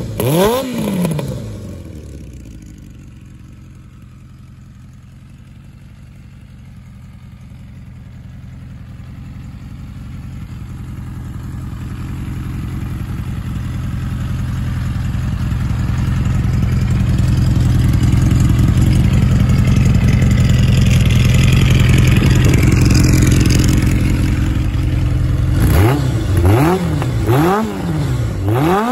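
Kawasaki Zephyr 1100's air-cooled inline-four running through a Mid-Knight monaka aftermarket muffler: a quick blip of revs at the start, then a steady idle, then repeated quick throttle blips near the end.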